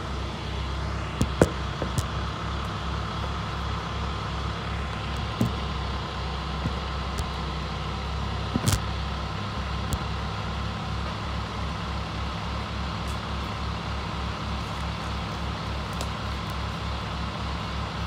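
Diesel engine of heavy tree-service equipment running steadily at a constant speed, with an even low throb. A few short knocks or clicks come over it, the sharpest at about one and a half seconds and nearly nine seconds in.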